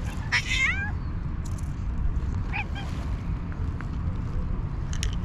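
Cat meowing: a loud, drawn-out call falling in pitch about half a second in, and a shorter call midway. Under both runs a steady low rumble of wind on the microphone.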